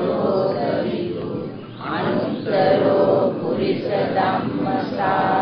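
Buddhist devotional chanting of Pali verses by several voices together in unison, with drawn-out syllables on held notes.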